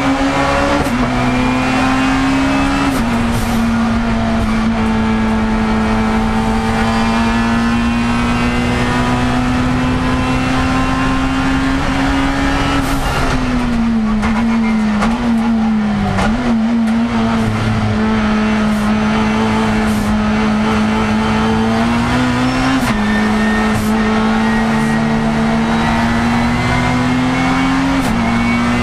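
Racing car engine heard from inside the cockpit, held at high revs, its pitch climbing slowly through each gear and dropping sharply at the upshifts. Near the middle the revs fall and waver as the car slows for a corner, then build again.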